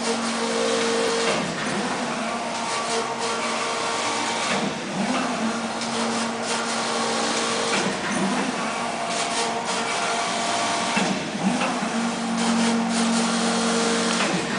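Intarsia circular knitting machine running: a continuous mechanical hiss and rattle with a steady hum that breaks off and comes back about every three seconds.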